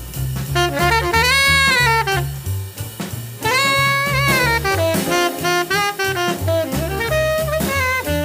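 Bebop jazz recording: a horn plays a solo line with a couple of long held notes that bend in pitch, over walking double bass and drums.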